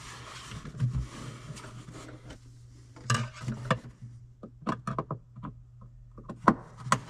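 Scattered clicks, taps and light knocks of hands and a screwdriver working among plastic tractor cab panels, with a quick run of sharp clicks in the second half, over a low steady hum.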